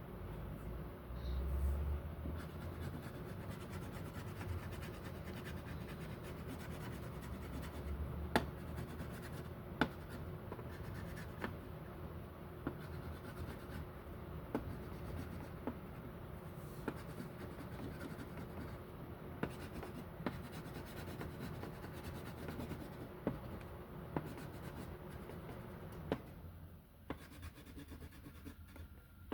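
A colouring tool scratching steadily back and forth on paper as an area is shaded in, with a few sharp ticks along the way.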